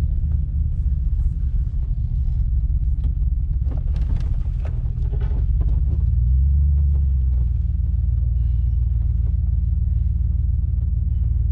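Pickup truck's engine and road noise heard inside the cab while driving and pulling in, a steady low rumble. A few light knocks come about four seconds in, and the rumble swells around six seconds in, then settles.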